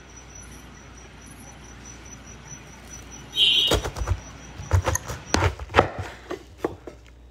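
Low steady hiss with a faint, high, evenly pulsed chirping. About three and a half seconds in, a run of irregular sharp clicks and knocks begins and goes on for about three seconds.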